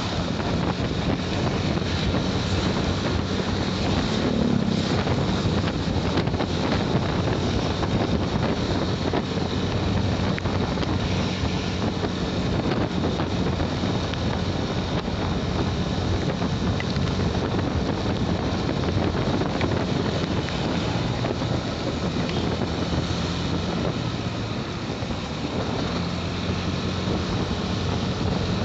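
Motorcycle ride recorded on the rider's microphone: steady wind noise over the engine's even hum and tyre noise on a road wet from light drizzle.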